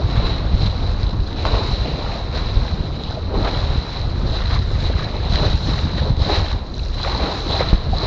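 Strong wind buffeting the microphone on a sailing yacht, with waves rushing and splashing along the hull in short repeated surges, and a thin steady high whistle over it.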